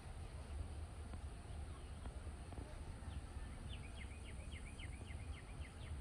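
Low, steady outdoor background rumble. From about halfway through, a small songbird gives a rapid series of short, high, falling chirps, about four a second.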